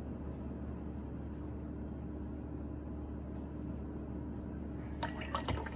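Slow water drops falling from a kitchen faucet into a glass jug, a faint tick about once a second over a steady low hum. A short cluster of sharper clicks comes near the end.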